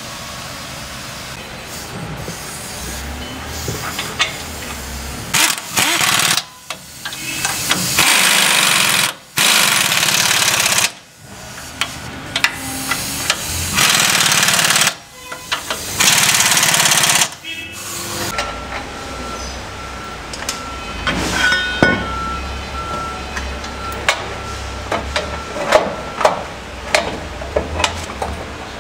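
Impact wrench running in several bursts of one to two seconds each, tightening the bolts of a snowplow mounting bracket to the truck frame. Lighter clicks follow later.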